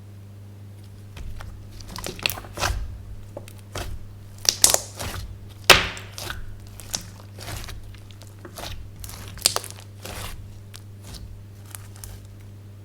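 Slime being kneaded and stretched by hand, giving irregular crackles and pops, most of them around the middle.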